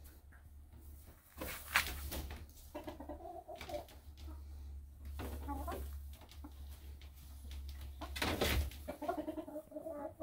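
Chickens clucking a few short, soft calls, with two sharp scratchy sounds, one about two seconds in and one near the end. A low steady hum runs under them.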